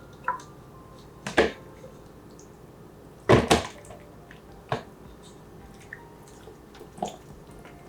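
Scattered knocks and taps of kitchenware as leftover food is put back into a container: about five sharp knocks, the loudest a quick double knock about three and a half seconds in.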